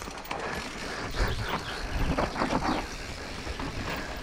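Mountain bike riding down a rough trail: steady tyre and rolling noise, broken by many quick knocks and rattles as the bike goes over bumps.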